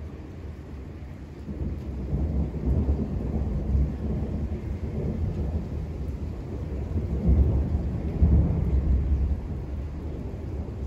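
Rolling thunder from a nearby storm: a deep rumble that swells about a second and a half in, grows loudest in two surges near the end, then eases off. A steady hiss of rain sits underneath.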